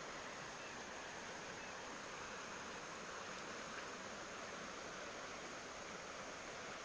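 Steady rush of a small stream's flowing water.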